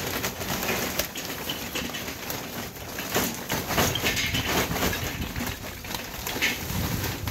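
Lumps of hardwood lump charcoal poured from a paper bag, clattering irregularly into a metal charcoal bowl.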